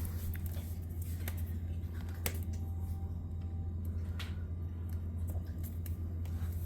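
Scattered small clicks and taps of letter magnets being handled and placed on a fridge door, over a steady low hum.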